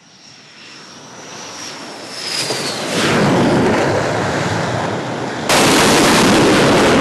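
The twin jet engines of an F/A-18 Super Hornet grow louder as it approaches and lands on the carrier deck for an arrested landing. A whine glides down in pitch as it comes over and touches down about three seconds in. About five and a half seconds in, the jet noise suddenly jumps much louder.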